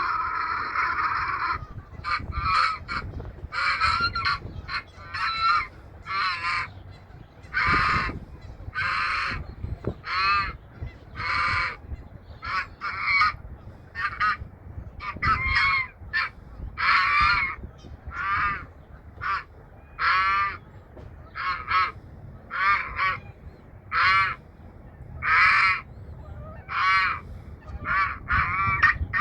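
Geese honking over and over, about one call a second, with one long drawn-out call at the start.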